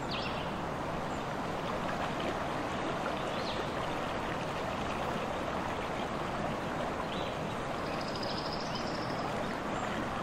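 Steady rush of running stream water, with a few faint, short high chirps over it.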